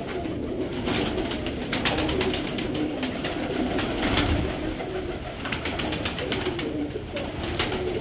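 Domestic pigeons cooing steadily together, with scattered faint clicks.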